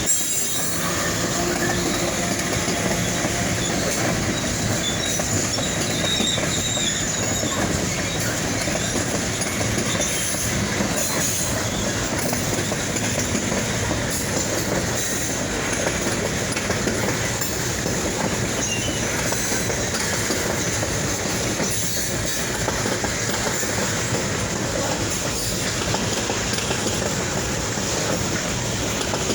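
Freight train rolling steadily past, its cars clacking over the rail joints with some wheel squeal.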